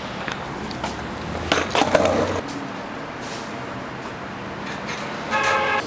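Skateboard wheels rolling over street pavement, with a few sharp clacks of the board about a second and a half in; the rolling stops about two and a half seconds in.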